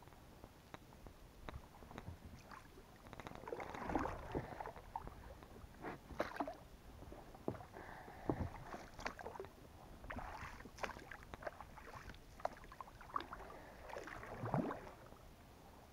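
A small inflatable boat being pushed along with a wooden birch pole: the pole dipping into and lifting out of the water with soft splashes and drips, in strokes every couple of seconds, with many small sharp clicks and knocks.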